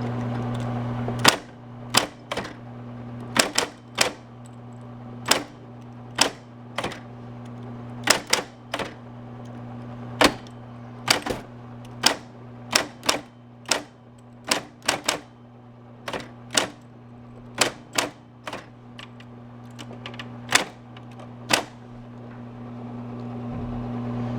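Smith-Corona Coronet Super 12 electric typewriter being typed on without a ribbon. Sharp, irregular key and typebar strikes come about one or two a second over the steady hum of its running motor.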